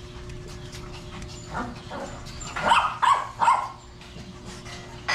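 Shih Tzu puppies giving short yips and whimpers, with a quick cluster of high cries a little past halfway through.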